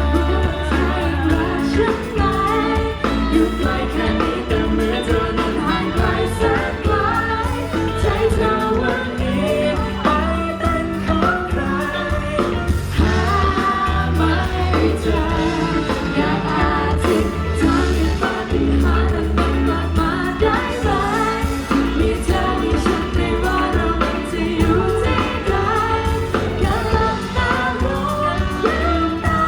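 Live pop music: a band playing with singing over it, on a heavy bass.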